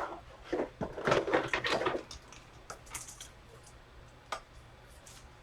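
Trading cards and their packaging being handled: a couple of seconds of rustling and scraping, then a few sharp clicks and taps.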